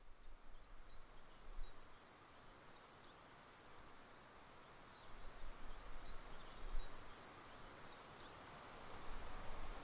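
Small songbirds calling in short, high chirps, several a second, over a steady outdoor hiss that grows louder near the end, with low rumbling gusts of wind on the microphone.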